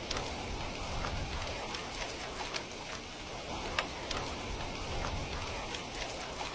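Heavy rain falling steadily, with scattered sharp ticks of single drops striking a surface, a few each second.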